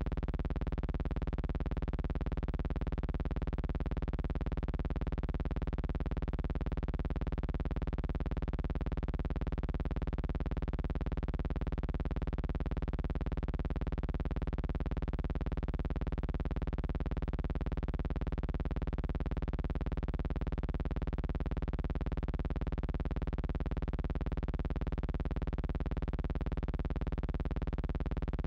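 Steady, unchanging electrical buzz over a strong low hum, holding the same pitch and level throughout.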